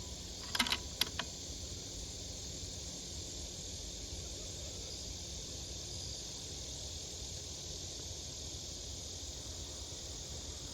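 Insects, most likely crickets, chirring steadily in the background. A few short sharp clicks come in the first second or so.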